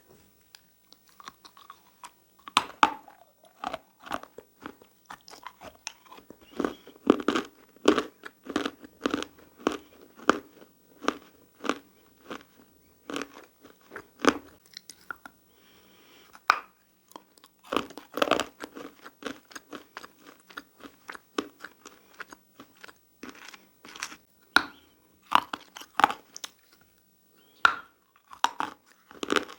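Close-up biting and chewing of dry handmade clay and plaster chalk: a long run of sharp, powdery crunches, about one or two a second, with a short lull about halfway through.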